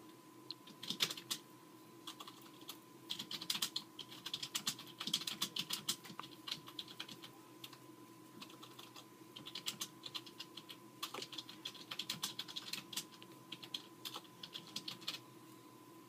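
Close-up handling noise of 550 paracord being threaded onto a steel paracord needle: irregular runs of light, scratchy clicks and crackles in several spells with short pauses between them. A faint steady hum sits underneath.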